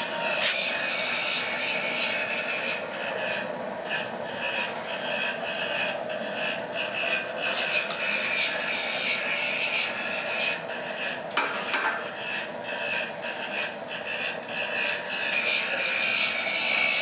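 Wood pellet burner of a portable pizza oven running with its small DC blower fan turned down to 6 volts, so it spins slowly: a steady whir with many small crackles from the burning pellets.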